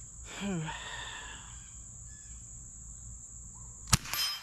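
Insects drone steadily at a high pitch, with a short call falling in pitch about half a second in. Near the end a single .22 rifle shot cracks, and a moment later the struck steel gong rings briefly.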